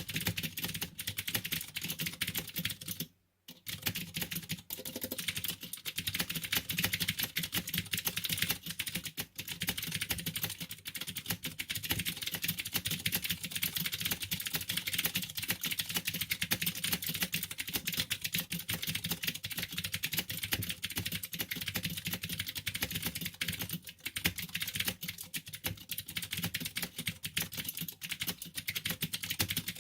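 Fast touch-typing on a Vortex Pok3r mechanical keyboard: a rapid, continuous clatter of keystrokes, with a brief pause about three seconds in, stopping abruptly at the end.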